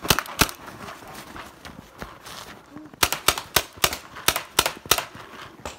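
Paintball markers firing: a few quick shots at the start, then after a pause of two to three seconds a rapid string of shots, about four or five a second, lasting about two seconds.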